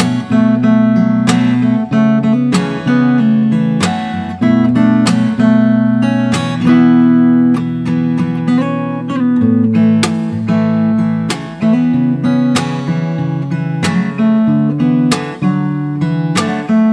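Background music: acoustic guitar strumming chords at a steady, unhurried pace.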